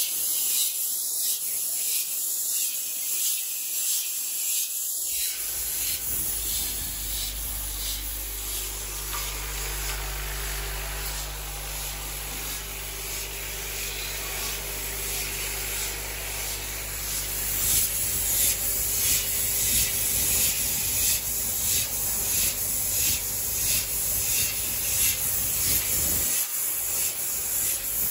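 Rotary cap wadding machine running: a steady hiss and rasping with a fast, regular ticking as caps index through the pressing turret. A low steady hum sets in about five seconds in.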